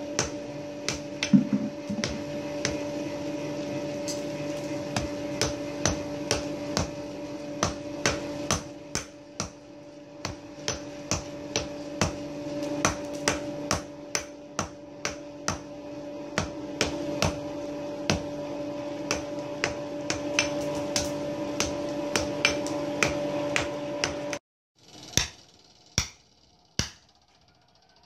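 Hand hammer forging a hot keris blade of besi kuning on a steel anvil block, a regular run of sharp ringing blows at about two a second. A steady low hum sits behind the blows and cuts off abruptly about 24 seconds in, after which a few more blows ring out.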